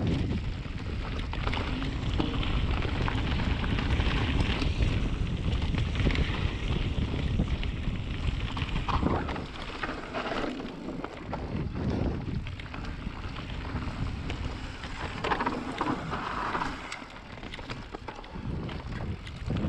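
Wind buffeting a GoPro microphone as a Kona Honzo CR carbon hardtail mountain bike descends a dirt trail at speed, a deep, steady rumble mixed with tyre noise on the dirt and scattered knocks from the bike. It eases somewhat in the last few seconds.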